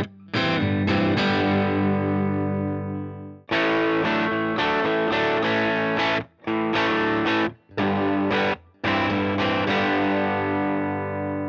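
Overdriven electric guitar, a Fender Stratocaster, playing a riff of ringing chords broken off by short stops. It starts through a Marshall Plexi amp at half drive. Partway through it switches to a Fender Deluxe Reverb with the drive fully up.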